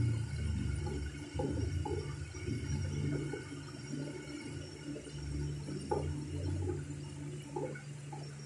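AM radio receiver tuned to 1134 kHz before the station signs on, giving out a steady low hum and static with faint steady whistling tones and scattered short crackles.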